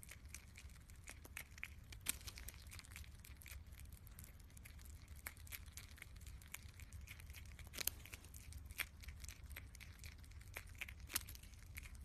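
Faint, irregular crunching and clicking of a prairie dog chewing a slice of apple, over a low steady hum.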